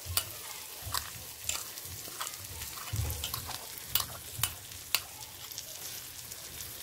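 A spoon scraping and tapping thick masala paste out of a glass bowl into a frying pan of stuffed brinjals. It gives a series of sharp clinks over a faint sizzle of oil in the pan.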